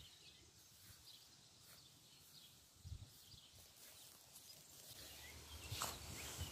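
Near silence: faint outdoor ambience with a few faint high chirps and a soft low thud about three seconds in.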